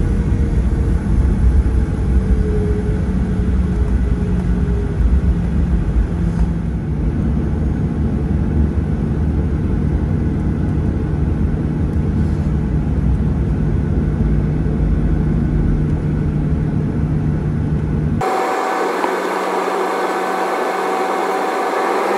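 Boeing 737-800 CFM56-7B jet engines at taxi power, heard inside the cabin at the over-wing window: a steady low rumble with a few steady hum tones. Near the end the low rumble drops out suddenly for about four seconds, leaving a thinner hiss with a steady higher tone.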